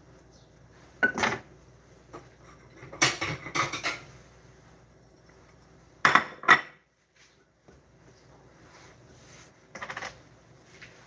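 Dishes and utensils clattering and clinking on a kitchen counter in a few separate bursts: one about a second in, a longer rattle around three to four seconds, two sharp knocks near six and a half seconds, and a lighter clatter around ten seconds.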